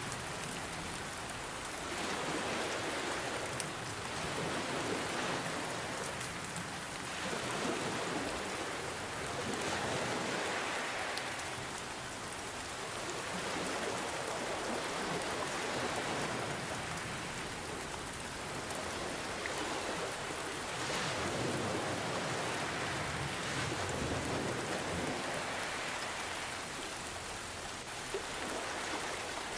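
Steady rain with ocean waves, the wash swelling and easing every few seconds.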